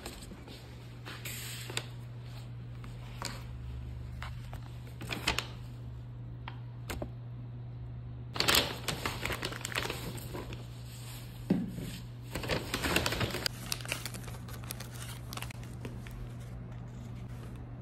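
Paper takeaway bag rustling and crinkling as it is opened and the wrapped food inside is handled, in short bursts with scattered clicks between. A steady low hum runs underneath.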